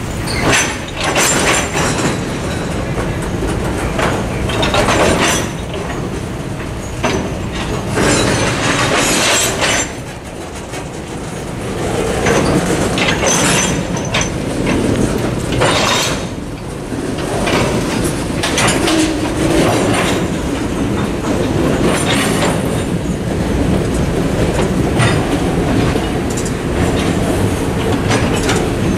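Freight cars, tank cars and a boxcar, rolling through a road crossing, their wheels clacking over the rail joints with some wheel squeal.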